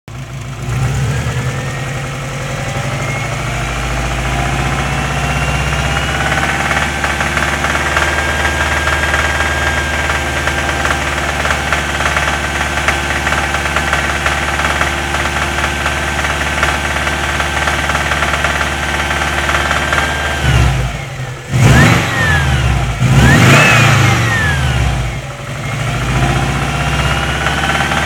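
Subaru Impreza WRX turbocharged flat-four engine running with a knock, which the owner says is most noticeable between 2000 and 2500 rpm. The revs climb over the first few seconds and hold steady, then two quick rev blips come about 21 and 23 seconds in, and the revs climb again near the end.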